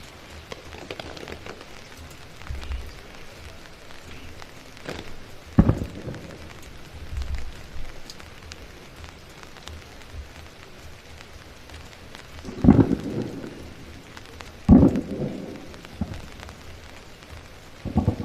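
Steady rain falling, with four loud, short, low thumps spread through it.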